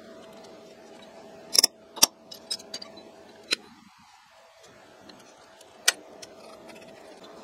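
Sharp metallic clicks and taps of small steel parts and pliers being handled at a milling machine's gearbox shaft: half a dozen scattered clicks, the loudest two close together about one and a half to two seconds in, over a faint steady hum.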